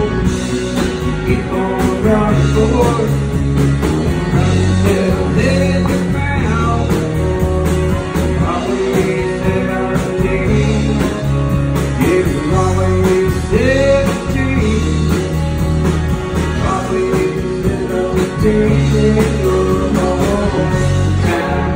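Live country-rock band playing: two electric guitars and a drum kit, with a man singing into a microphone.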